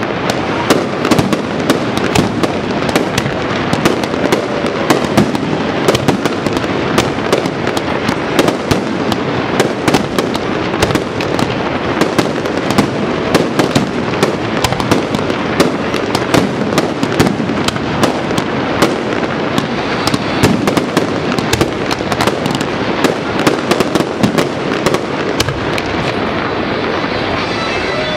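Aerial fireworks display: a rapid, unbroken barrage of shell bursts and crackling, many sharp bangs a second.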